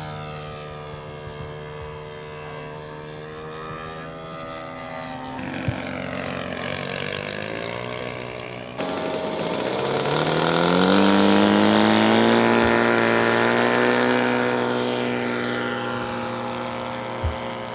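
Engines of radio-controlled warbird model aircraft running, their pitch sliding up and down as the planes fly past. The sound is cut together from several shots and is loudest about eleven seconds in.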